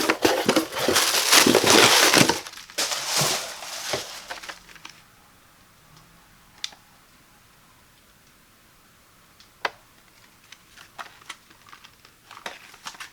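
Product packaging being handled and opened, crinkling and crackling loudly for the first four seconds or so, then a few scattered light clicks and taps.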